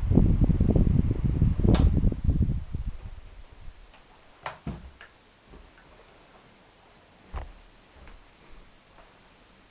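Air from a pedestal fan buffeting the microphone as a fluttering rumble that fades away over the first three seconds, followed by a few scattered light clicks.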